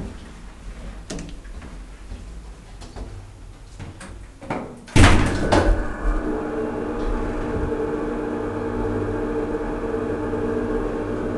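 DEVE hydraulic elevator: its doors shut with a loud knock about five seconds in, then the hydraulic drive starts up with a steady hum as the car travels.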